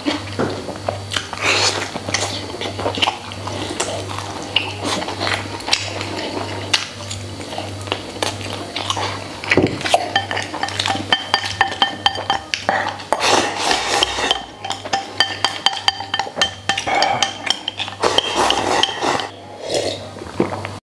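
Chopsticks clicking and clinking against a ceramic bowl while someone eats, many short knocks throughout, over background music with a steady low pulse.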